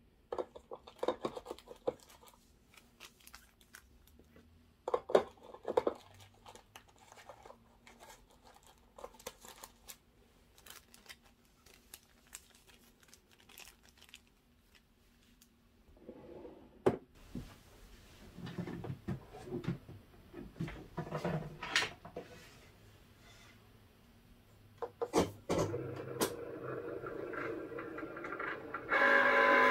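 Hands handling paper cards and small packaging sleeves: rustling and crinkling with light clicks, taps and a few louder knocks. Near the end a Cricut cutting machine starts up with a steady, loud whirring motor.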